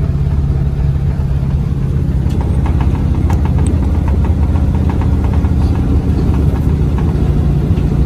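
Classic VW Beetle's air-cooled flat-four engine running steadily, heard from inside the cabin, with scattered light rattles and clicks.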